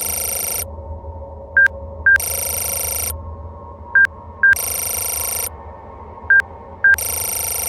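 Electronic interface sound effects: pairs of short high beeps, each pair followed by about a second of buzzy data-like static, repeating three times about every two and a half seconds over a low steady drone. The beeps are the loudest sounds.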